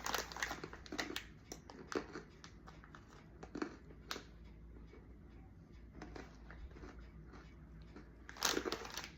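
Close-up mouth sounds of chewing a very hard, crunchy snack chip, with irregular crunches and a louder burst of crunching near the end.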